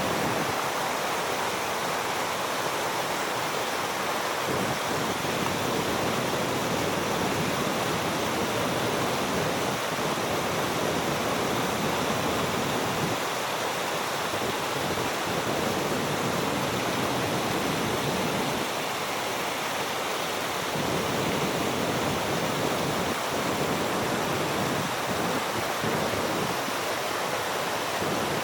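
Small waterfall splashing, a steady rush of falling water with no break.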